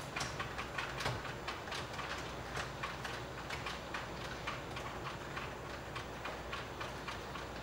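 Rapid, irregular light clicks and ticks, several a second, over a steady low hum.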